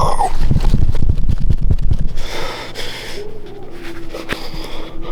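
Heavy, excited breathing and gasping exhales of a hunter right at the microphone, with low rumbling mic-handling noise for the first two seconds and a breathy exhale about two seconds in.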